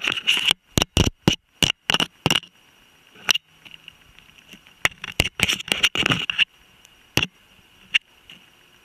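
A bird of prey's beak and talons knocking and scraping on a camera, close up: a quick run of sharp knocks in the first two and a half seconds, another cluster about five to six seconds in, then two single knocks.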